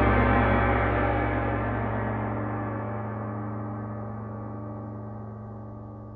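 A single struck metal instrument, gong-like, ringing with several low steady tones that slowly fade away.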